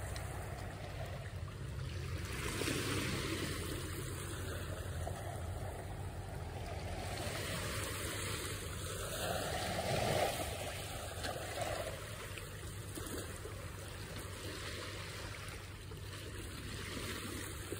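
Small waves washing and lapping on a sandy shore: a steady watery hiss that swells and ebbs, louder once about ten seconds in.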